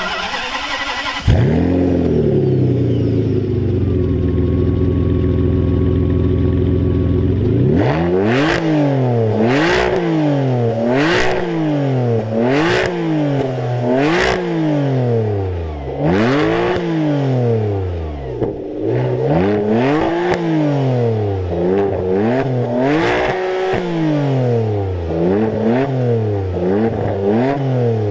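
Ferrari 612 Scaglietti's V12 through a Quicksilver aftermarket exhaust, starting about a second in with a brief flare and settling to a steady idle. From about eight seconds it is blipped again and again, a dozen or so quick revs about a second and a half apart, each with a sharp crack from the exhaust.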